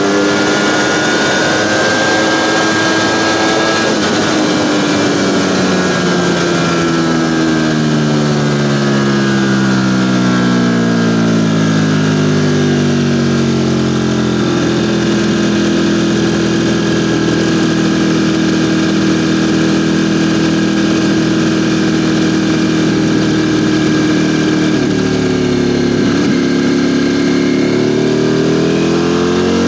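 Ducati Panigale V4's V4 engine heard while riding, over a steady rush of wind noise. The engine note falls gradually for roughly the first fourteen seconds and holds a steady pitch for about ten more. Near the end it dips briefly, then starts to rise again.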